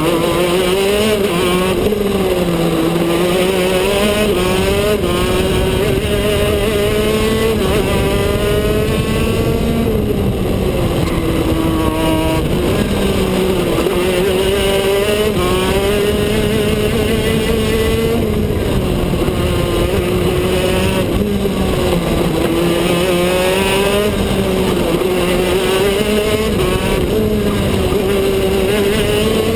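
KZ2 shifter kart's 125 cc two-stroke engine heard from on board at racing speed. Its pitch rises and drops again and again as the kart accelerates and slows through the corners.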